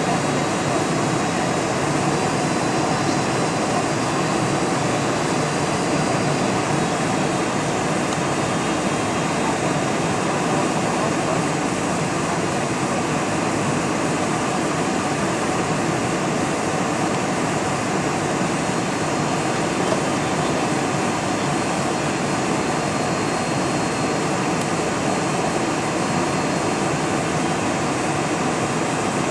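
Steady cabin noise of a Boeing 747 on approach: jet engines and rushing air, heard from inside the passenger cabin, with no change in level.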